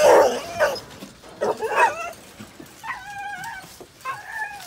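Kennelled dogs barking and yipping, a sharp bark at the start and another about a second and a half in, followed by two drawn-out, wavering whines.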